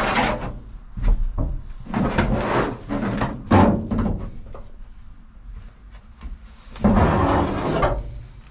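Rubber floor mat being pulled up and dragged off the metal floor of a Ford E-150 cargo van: several noisy scraping, rustling bursts, with a longer one about seven seconds in.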